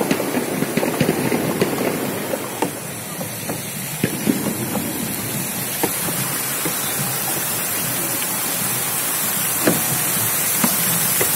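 Steady rushing hiss of a fountain's water jets splashing down into a lake close by. The spray grows louder and brighter towards the end, with a few sharp ticks scattered through it.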